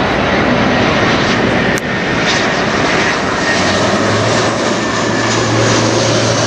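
Airbus A319 jet airliner passing low overhead on landing approach: a loud, steady rush of jet engine noise with a faint high whine. A brief click comes about two seconds in, and a low steady drone joins from about halfway.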